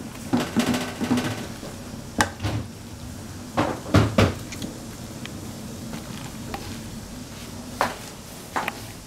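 Plastic spatula scraping and knocking against an aluminium wok while stirring a thick mass of cooked macaroni, with a run of clattering near the start and the loudest knocks about four seconds in.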